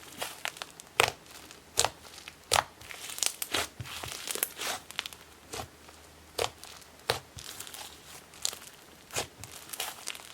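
Hands squishing, stretching and pressing an inflatable butter slime, giving irregular sharp bubble pops, roughly one or two a second, over a sizzly crackle.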